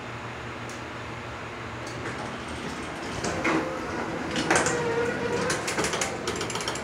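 Traction elevator car with a steady hum, then its sliding doors opening with a rising slide about four and a half seconds in. Near the end comes a rapid run of clicks that the rider can't place.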